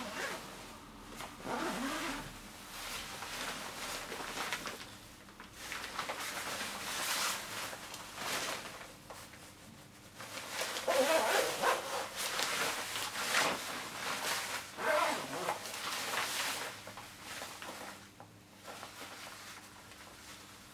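Stiff Gore-Tex Pro Shell fabric of a Marmot Cerro Torre jacket rustling and swishing as it is put on, with its front zipper being pulled up. The rustles come in irregular bursts, busiest in the second half.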